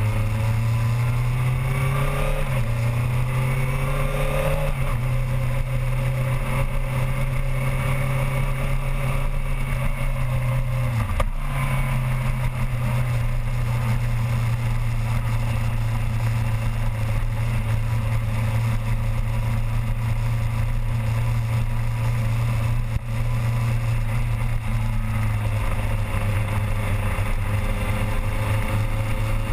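Yamaha R6's inline-four engine running at low, fairly steady revs as the bike rolls slowly, heard from a camera mounted on the bike, with small rises and falls in revs and a brief dip about eleven seconds in.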